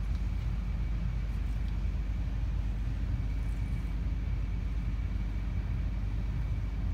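Large diesel engine of a Caterpillar off-highway haul truck idling: a steady low rumble with a faint high whine over it.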